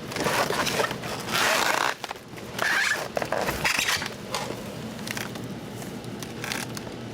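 Packing material rustling and crinkling as parts are unwrapped by hand, in several noisy bursts over the first four seconds, then quieter handling.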